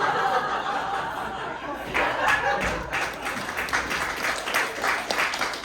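Live audience laughing, then clapping from about two seconds in, evenly paced at about three claps a second.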